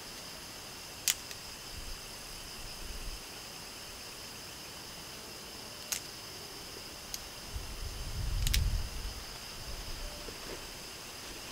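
Steady high buzzing chorus of night insects such as crickets, with a few sharp cracks from the dry kindling and small twig fire. About eight seconds in, a louder, low noise of handling the sticks.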